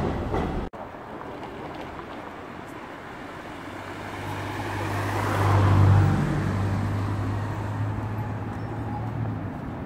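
A car drives past on a city street. Its engine and tyres grow louder, peak about six seconds in, then fade away over a low street hum.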